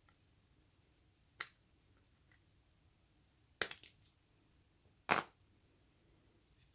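Plastic back cover of a Nokia 5300 XpressMusic being prised off by hand: sharp plastic clicks, one about a second and a half in, a quick cluster past halfway, and the loudest snap about five seconds in as the cover comes free.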